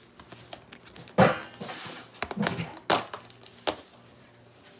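Objects being handled: a few sharp knocks and thunks with some rustling, the loudest knock about a second in.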